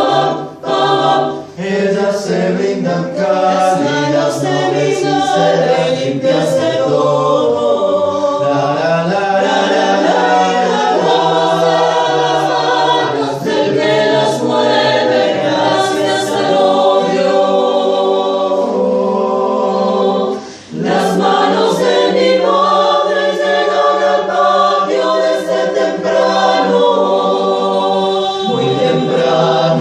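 Small mixed chamber choir singing a cappella in several parts, with short breaks between phrases about a second and a half in and again about two-thirds of the way through.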